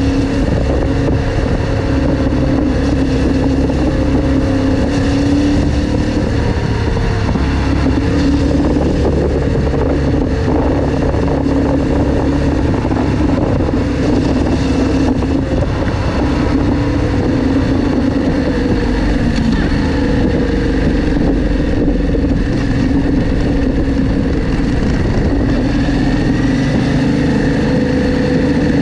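Motorcycle engine running steadily, its pitch drifting a little up and down.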